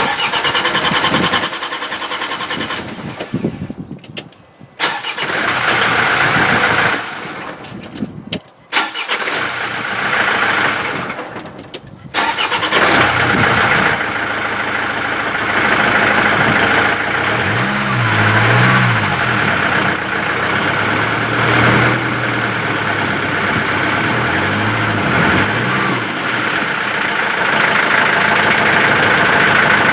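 Land Rover Defender's 2.4-litre diesel engine running, with a few brief breaks in the sound early on and steady running from about twelve seconds in.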